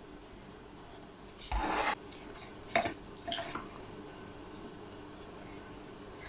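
Wooden pieces being handled: a short rub or scrape about a second and a half in, then a sharp knock and a brief scrape a second or so later.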